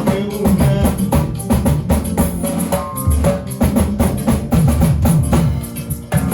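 A band playing at a sound check, with a drum kit beating steadily over a strong low bass line.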